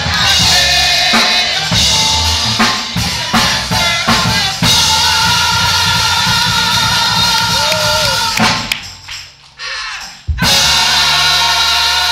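Live church band music: a drum kit with kick, snare and rimshot hits under held chords. The playing falls away about 8.5 s in and comes back in strongly about two seconds later.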